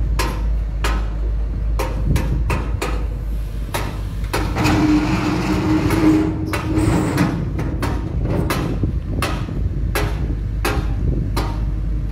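Sharp knocks and clanks at irregular intervals, over the low rumble of a Komatsu PC210 excavator's diesel engine. About five seconds in, the engine noise grows louder for a couple of seconds with a steady hum.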